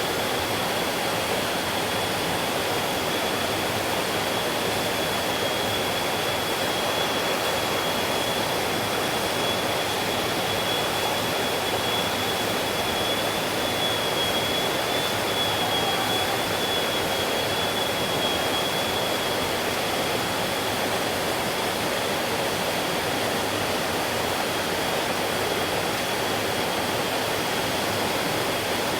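Stream water flowing in a steady, unbroken rush, with a thin steady high tone running through it.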